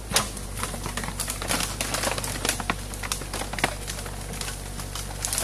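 Mini excavator bucket breaking into a beaver dam of packed sticks and mud: branches cracking and snapping in quick, irregular bursts, the first sharp snap right at the start. Underneath is the steady low running of the excavator's engine.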